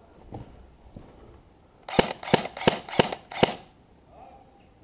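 Airsoft rifle firing five quick single shots in under two seconds, starting about two seconds in.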